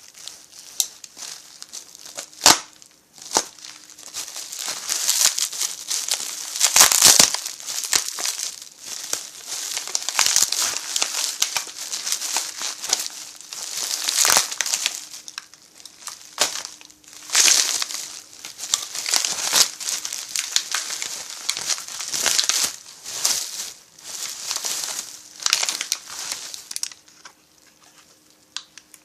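Plastic parts bags crinkling and rustling in irregular bursts as chainsaw kit parts are unwrapped and handled, with a couple of sharp clicks.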